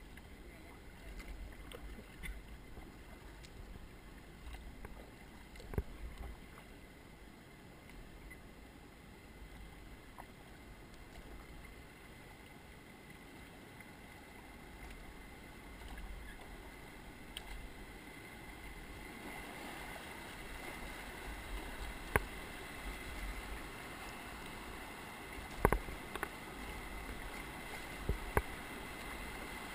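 River water running around a kayak, with low wind rumble on the microphone and a few sharp knocks. The water noise grows louder in the second half.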